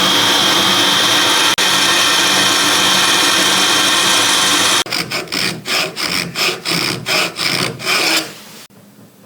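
A shop power tool working steel with a steady, high-pitched grinding noise. About five seconds in it changes to about nine rhythmic strokes, roughly three a second, which stop near the end.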